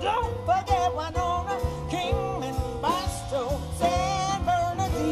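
Live blues band playing with electric guitars, bass, drum kit and keyboard: a steady beat with a bending melody line over it.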